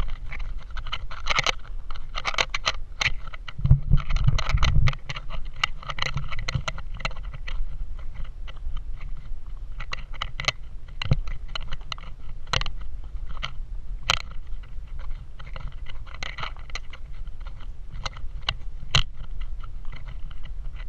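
Horse walking on a rocky dirt trail, hooves clicking and scraping on stones at an uneven pace over a steady low rumble. A louder low rumble comes in about four seconds in and lasts about a second.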